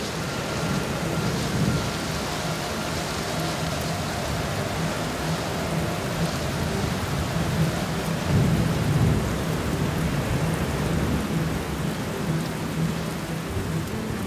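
Steady rain with low rolling thunder, the rumble swelling about eight seconds in.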